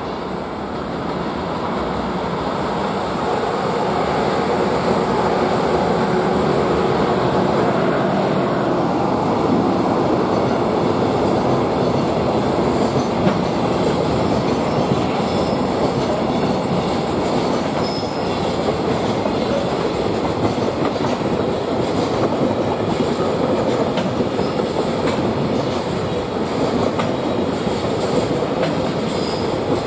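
Freight train hauled by a JR Freight EH200 electric locomotive passing close by, its container flatcars rolling and clattering over the rail joints. The noise builds over the first few seconds as the locomotive draws level, then holds steady as the wagons go by.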